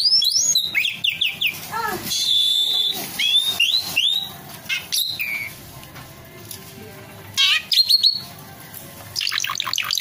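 Caged Asian pied starling (jalak suren) singing: a varied run of rising whistles and chirps with a held whistle about two seconds in, a quieter stretch in the middle, then a fast series of rising notes near the end.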